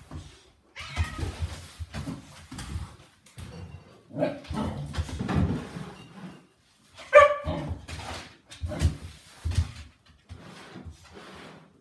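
Nova Scotia duck tolling retriever in rough play, giving short barks and whines among bumps and scuffles. The loudest bark comes about seven seconds in.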